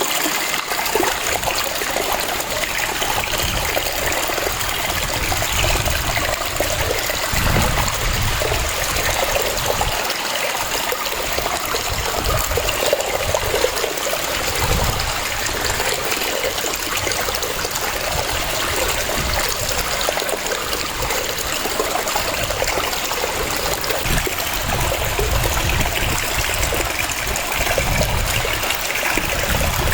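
Waterfall cascading in a steady rush of water, with uneven low surges of falling water.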